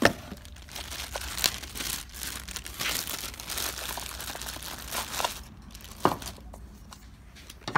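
Clear plastic bag crinkling as the parts of a septic air pump rebuild kit are pulled out of it, most busily for the first five seconds or so, with a few sharp knocks of the parts being handled.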